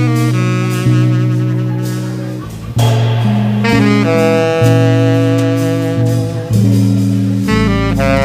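Jazz played by a small group: long held melody notes over a bass line that moves to a new note every second or so, with light cymbal strokes.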